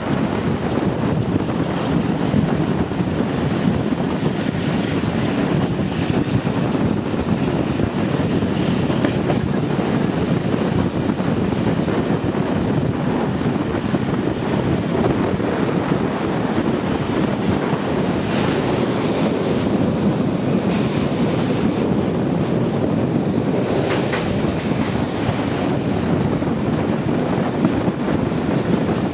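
Steam-hauled train running at speed: a steady rumble and rush of wheels on the rails, with wind on the microphone.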